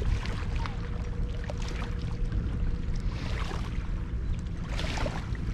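Outdoor wind rumbling on the microphone, with small waves lapping and splashing at the water's edge. There is a splash about three seconds in and another about five seconds in.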